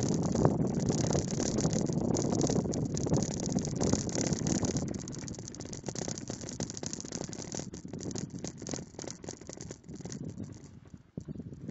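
Mountain bike riding a rough dirt track, heard from a handlebar-mounted camera: wind on the microphone, tyre noise and the camera mount rattling with vibration. It eases off about halfway through, leaving sparser rattles and clicks.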